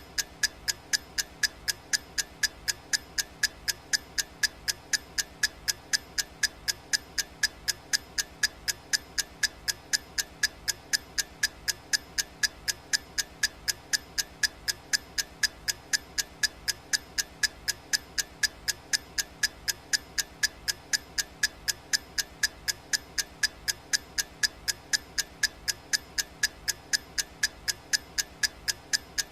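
Clock-ticking sound effect of a countdown timer: sharp, evenly spaced ticks at roughly two and a half a second, steady and unchanging.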